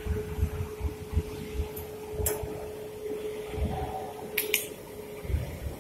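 Low knocks from the camera being handled as a welding shield is brought in front of the lens, over a steady whine that cuts off about five seconds in. Two sharp clicks come about two and four and a half seconds in.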